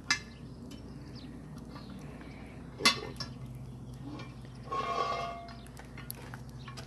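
Cast-iron Dutch oven on a campfire tripod being handled as its lid is lifted off: metal clanks, a sharp one just after the start and a louder one about three seconds in, then a ringing metallic scrape around five seconds in.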